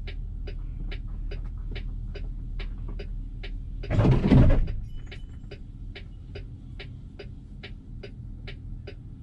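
Low steady engine idle with evenly spaced clicking, about two and a half clicks a second, and one loud burst of noise about half a second long about four seconds in.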